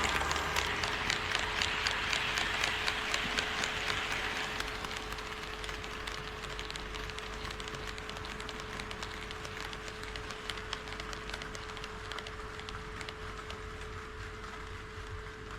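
HO scale model train running on the layout track, wheels clicking over the rail joints about twice a second. The clicking and running noise are loudest for the first few seconds and then fade as it moves away, over a steady hum.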